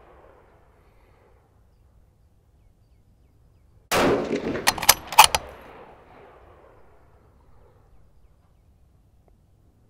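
A close 6mm Creedmoor rifle shot about four seconds in, followed within a second and a half by a few sharper cracks, with a long echo rolling away afterward. The echo of an earlier shot dies away in the first second.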